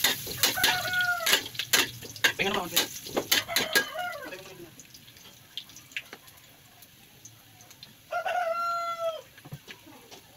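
Metal spatula scraping and clanking in a wok during the first few seconds, while a rooster crows in the background; a second, louder crow comes about eight seconds in.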